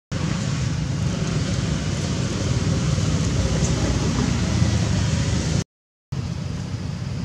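Steady rushing outdoor background noise, heaviest in a low rumble, with a short dropout to silence about six seconds in.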